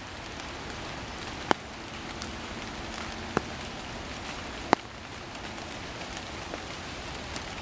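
Steady rain falling, with a few louder single drips standing out over the patter, three of them plainly.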